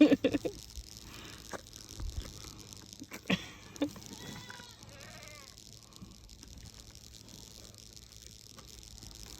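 Goat bleating: a loud bleat right at the start, then a fainter wavering bleat a few seconds later, with a couple of sharp knocks in between.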